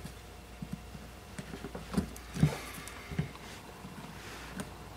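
Small screwdriver tip scratching and picking black sealing compound out of a screw recess on a metal box: a few light clicks and scrapes, the loudest a little after two seconds in.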